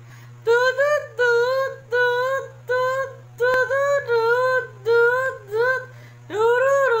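A high voice singing short, repeated notes on nearly the same pitch, about two a second, then going into one long wavering note near the end.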